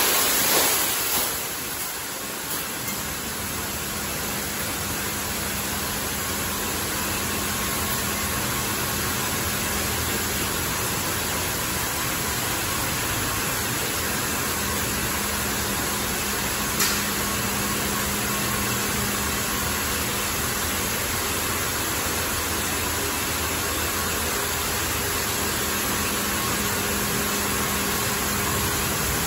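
High-pressure water jets of a Liquid Force touchless car-wash gantry spraying a car: a steady rush of spray, loudest in the first second or two, with a faint steady hum underneath.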